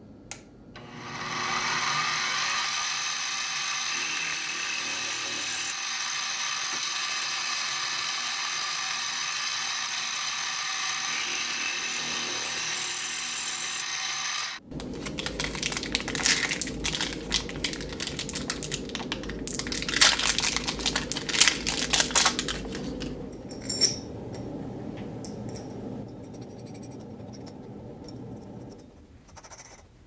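Milling machine end mill cutting a metal plate, a steady high whine for about fifteen seconds that stops suddenly. Then the loud crinkle of a plastic bag being opened by hand to get out a bearing, followed by a few light knocks of small metal parts being handled.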